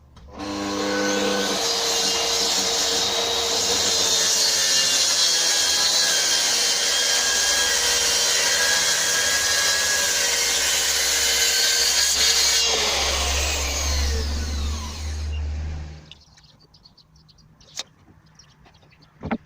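Track saw (plunge saw) starting up and cutting through a sheet of 18mm plywood. About three-quarters of the way through, the blade is released and winds down in falling pitch, while a lower steady hum carries on for a few seconds more and then stops.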